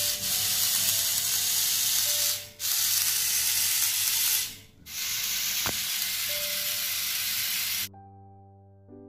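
Small DC gear motor of a plastic kit-built robot, running a drill that bores a hole for a seed. Its high, hissing whirr comes in three runs of two to three seconds each, with brief stops between, and ends near the end. Soft background music plays underneath.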